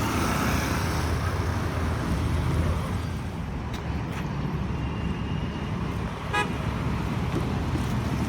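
Steady road traffic rumble, with a brief vehicle horn toot about six seconds in.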